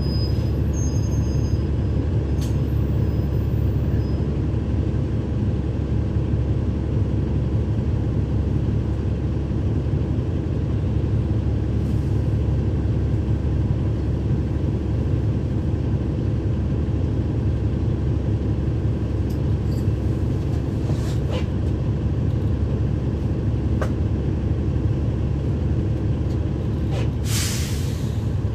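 On-board sound of a 2012 NABI 40-foot transit bus's Cummins ISL9 diesel engine running at a steady pitch, with a few light clicks. Near the end, a hiss of released air about a second long from the bus's air system.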